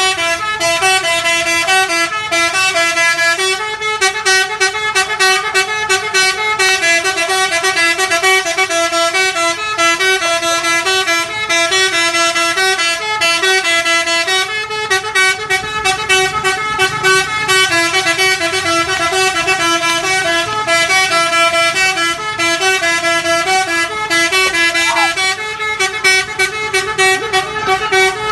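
Bus 'telolet' musical horn playing a tune: a fast, repeating run of stepped notes that carries on almost without pause.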